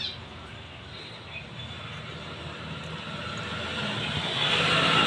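Engine noise of a motor vehicle, a steady rumbling haze that grows gradually louder over the last few seconds.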